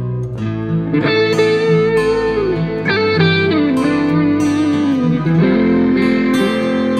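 Background music led by a guitar, playing held notes that bend smoothly up and down in pitch over a steady accompaniment.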